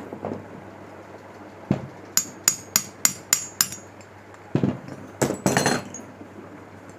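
A tool taps the camshaft out of a 70cc motorcycle's aluminium cylinder head: six sharp, ringing metal-on-metal taps, about four a second. A dull knock comes before them, and a few knocks and a rattle follow as the head is handled.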